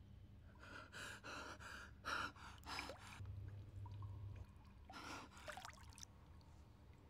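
A person gasping for breath: a quick run of sharp, breathy gasps about a second in, then one more a couple of seconds later, over a faint low hum.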